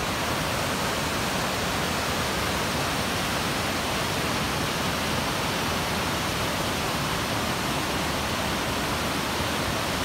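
Waterfall close by: a steady, even rush of white water pouring over rock and crashing into the pool below.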